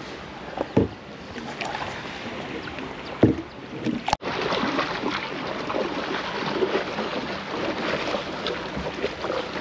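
A small wooden rowing boat being rowed through calm water: the splash and lapping of water at the hull and oar, with a couple of dull knocks about one and three seconds in.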